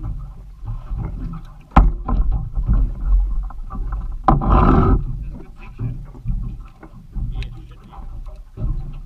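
Water slapping against a small boat's hull, with wind rumbling on the microphone. A sharp knock comes about two seconds in, and another about four seconds in, followed by a louder half-second rush of noise.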